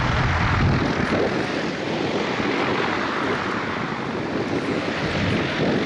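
P-51 Mustang fighter flying past, its V-12 piston engine and propeller running steadily, a little quieter in the middle and louder again near the end.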